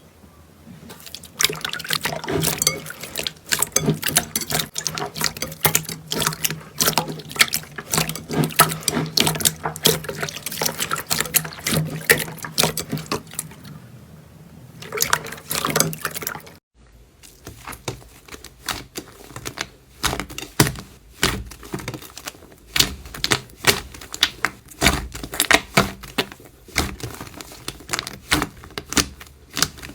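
Slime being squished and pressed by hand, with dense wet crackling, popping and squelching clicks. About halfway through it cuts to another slime, with sharper, more separate pops.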